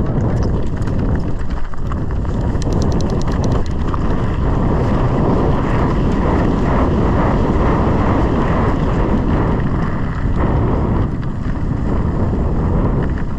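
Wind buffeting the microphone of a mountain biker's camera during a trail descent, over the rumble and rattle of the bike on dirt. A quick run of rapid clicking comes about three seconds in.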